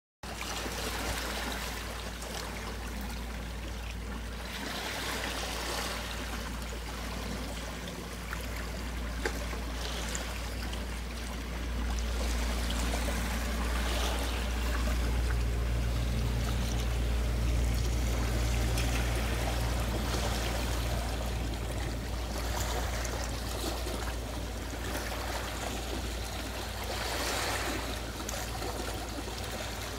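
Small sea waves washing over a pebble beach, a continuous rushing that swells and eases every few seconds, over a steady low rumble.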